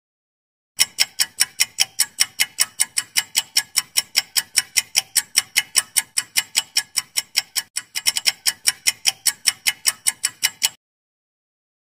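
Clock-ticking sound effect for a quiz countdown timer: rapid, even ticks, several a second, starting about a second in and stopping about a second before the end.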